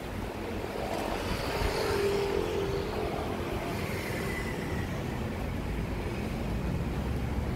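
Steady outdoor background noise with a low rumble, like vehicle traffic going by.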